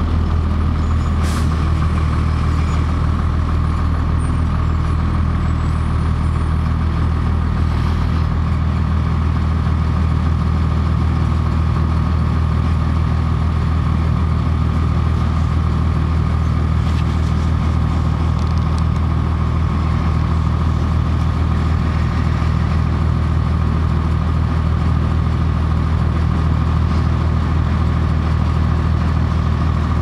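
Cummins ISC inline-six diesel of a 2002 Blue Bird CS transit bus idling steadily, heard from inside the passenger cabin, with a steady high whine alongside the low engine hum.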